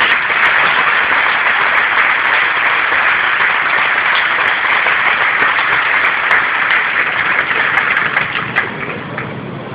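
Stadium crowd applauding, a dense steady clapping that dies down near the end.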